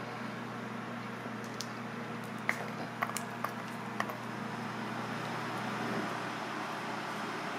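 Shelled borlotti beans dropping into a stainless-steel bowl: about half a dozen small, sharp clicks with a brief metallic ring, between about one and a half and four seconds in. Under them runs a steady mechanical hum.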